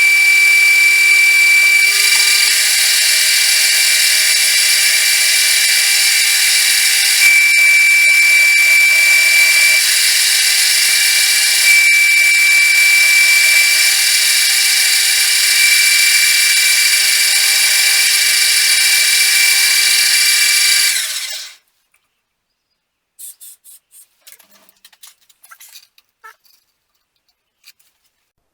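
Metal lathe running and turning round metal stock, a loud steady machining noise with a high-pitched whine that comes and goes. It stops abruptly about three quarters of the way through, leaving only a few faint clicks.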